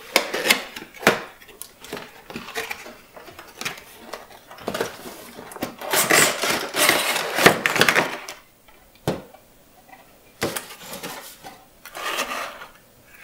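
Cardboard toy box with a clear plastic window being handled: irregular rustling and crinkling with sharp clicks and knocks, densest in the middle.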